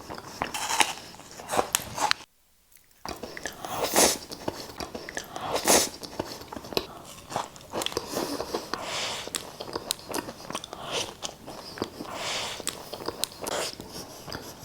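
Close-miked eating: bites and chewing with crisp crunching and wet clicks, a few bites standing out louder, broken by a brief silent gap a little over two seconds in.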